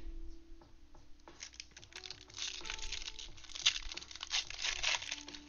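Foil trading-card pack wrapper crinkling and tearing as it is ripped open and the cards are pulled out. The crackle starts about a second in and lasts until near the end, over soft background music.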